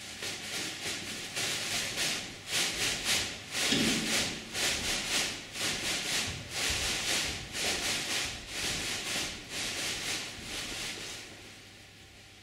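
A group of feet shuffling and sliding across a stage floor in step: a rhythmic scraping, about two to three strokes a second, that starts suddenly and dies away near the end.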